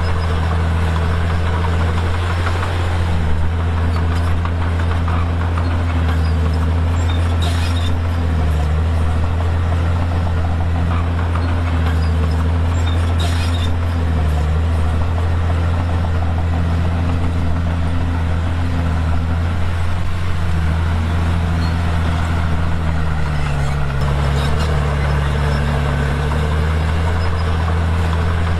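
Komatsu D51PX bulldozer's diesel engine running steadily under work, its pitch dipping and recovering several times as the load changes, with a couple of brief clanks.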